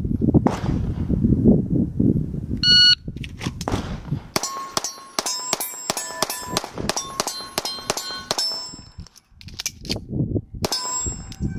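A shot timer's electronic start beep, then about a second and a half later a fast string of pistol shots, each with the ring of a steel target being hit, lasting about four seconds. One more shot and ring comes near the end.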